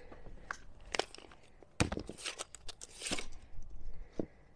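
Handling of a tape measure: several sharp clicks and short rattles as it is picked up and its blade is pulled out.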